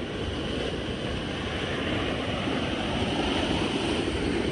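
Debris flow of mud, rock and floodwater rushing down a canyon wash, a steady rumble with no break.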